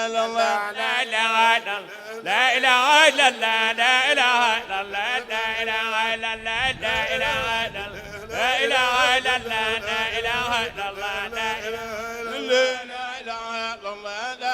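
Male voices chanting dhikr: a steady held note sounds throughout, with a lead voice singing wavering, ornamented phrases loudest about two seconds in and again about eight seconds in.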